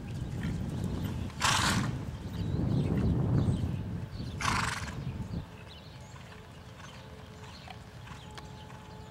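Horse cantering on arena sand, its hoofbeats dull and uneven, with two short snorts about a second and a half in and again about four and a half seconds in. The hoofbeats fade away after about five and a half seconds, leaving a faint steady hum.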